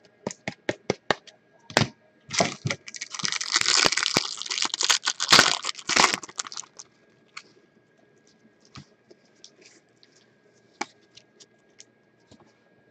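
Trading-card packaging being torn open: a quick run of clicks, then about four seconds of tearing and crinkling wrapper, followed by scattered light clicks as the cards are handled.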